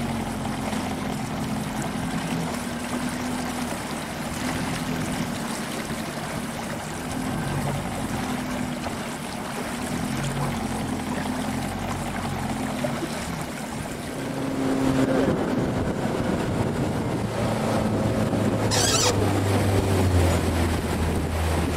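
Motorboat engine running steadily over the rush of river water, getting louder about two-thirds of the way through, with one brief tick near the end.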